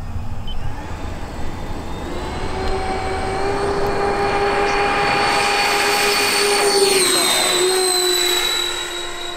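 Electric ducted-fan engines of a large radio-controlled Airbus A380 model at takeoff power, a high whine over a rushing hiss that swells as the plane accelerates down the runway. About seven seconds in, the whine drops in pitch as the plane lifts off and passes by.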